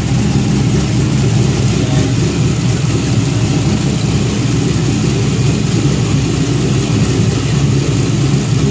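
GM LQ4 6.0-litre V8 idling steadily and loudly soon after a cold start, with no throttle change. The idle is still not completely happy, though it is the best cold start it has made.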